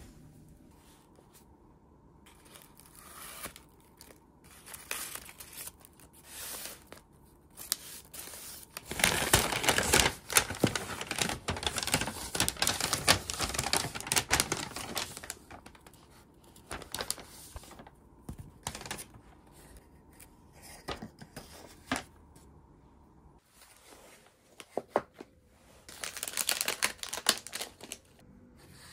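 Paper wrapping and packaging being unfolded and handled by hand: irregular crinkling and rustling in spells, with a long, loud stretch about a third of the way in and another shorter spell near the end.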